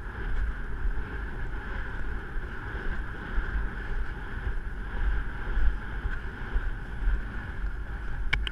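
Wind buffeting the microphone of a camera carried by a rider on a horse moving across country: a steady, gusty rumble with hiss, and one sharp click near the end.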